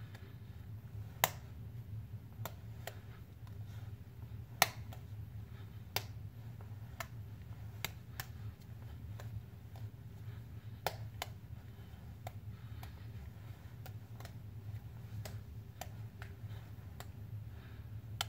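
Slime being squeezed and worked in the hands, giving off irregular sharp clicks and pops about once a second, two of them much louder than the rest, over a low steady room hum.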